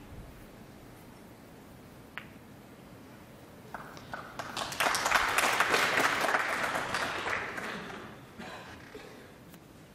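One sharp click of snooker balls colliding about two seconds in, then the audience applauding, swelling up after about four seconds and dying away near the end: applause for a successful escape from a snooker on the third attempt.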